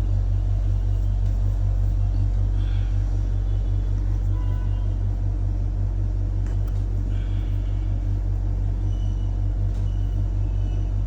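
A steady, loud low rumble with a fast flutter to it, with a few faint high chirps over it.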